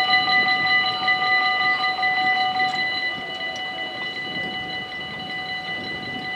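Dutch level-crossing bells ringing without a break while an ICMm intercity train passes, its wheel and running noise fading away. One of the bell tones stops about three seconds in.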